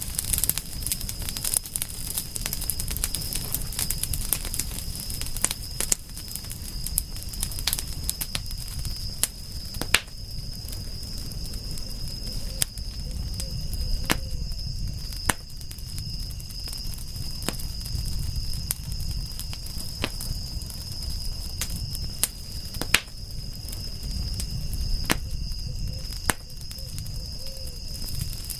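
Wood fire crackling, with irregular sharp pops and snaps of varying strength over a low steady rumble of the flames. A steady high-pitched tone runs behind it.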